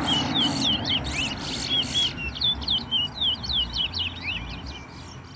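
Caged songbird in a whistle-off singing a rapid string of short, sweet down-slurred notes, each phrase counted as a point in the race.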